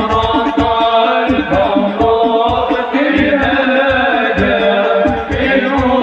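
Sholawat, Islamic devotional singing, with a steady drum beat, played loud over an amplified sound system.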